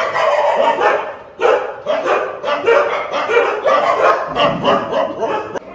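Several shelter dogs barking and yipping in quick succession, their short barks overlapping.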